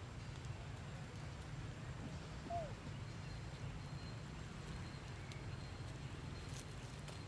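Outdoor ambience with a steady low rumble, and one short falling squeak-like call about two and a half seconds in.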